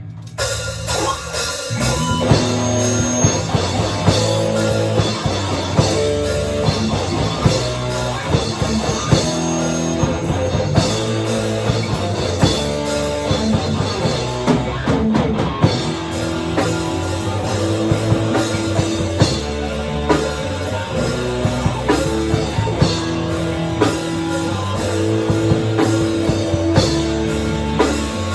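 Live rock band playing a song: drum kit and guitars, starting up in the first second or two and then running loud and full.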